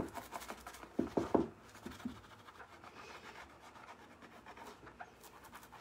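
A hand rubbing and pressing a rub-on transfer down onto a textured lampshade, making soft scratchy rubbing sounds. A few louder strokes come about a second in, then quieter rubbing.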